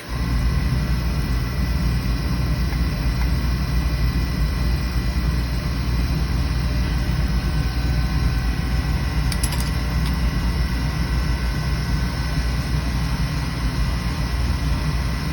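Beckett oil burner starting up and running: its blower motor and oil flame make a steady low rumble with a faint steady hum, coming on suddenly at the start.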